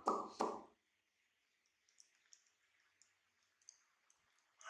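Three quick knocks right at the start, then faint, scattered wet clicks and smacks of a baby macaque chewing orange segments.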